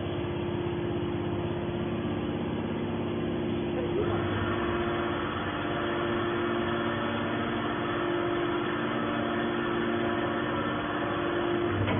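Hydraulic scrap metal baler running with a steady machine hum, which turns harsher and busier about four seconds in.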